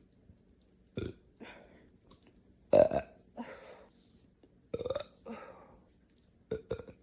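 A woman burping four times, about two seconds apart. The burp about three seconds in is the loudest, and the last is a short double burp.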